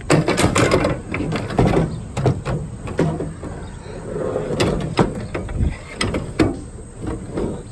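Irregular clanks, knocks and rattles of a light piece of scrap metal, which the scrapper takes for aluminum, being handled and loaded, with a dozen or so sharp knocks spread through.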